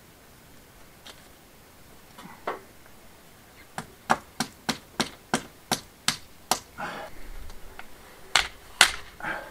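A run of sharp knocks, about three a second, then two louder knocks near the end, as a clip is fixed to the wall to hold up a sagging water pipe.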